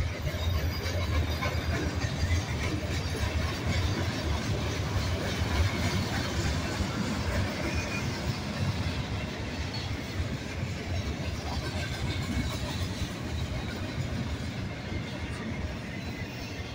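Double-stack intermodal container train rolling past at steady speed: a continuous rumble and rattle of well-car wheels on the rails.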